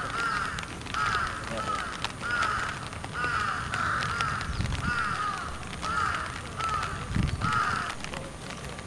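A crow cawing over and over, one or two caws a second, stopping near the end.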